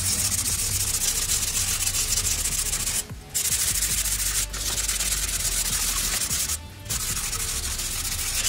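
Hand block-sanding of body filler on a car fender: the steady scratchy hiss of sandpaper on filler, pausing briefly twice, about three seconds in and again near seven seconds. The filler is being blocked over a guide coat to show its high and low spots.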